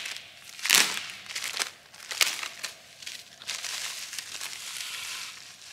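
White packaging crinkling as it is unwrapped by hand from a small battery pack: sharp crackly bursts, the loudest about a second in, then a softer, steadier rustle.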